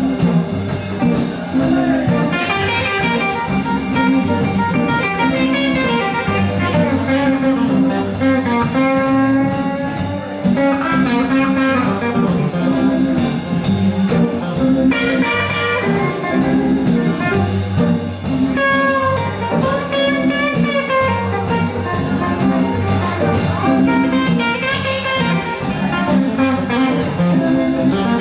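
Live blues band playing, with electric guitar and drum kit over a repeating low groove. A lead line slides and bends in pitch above it.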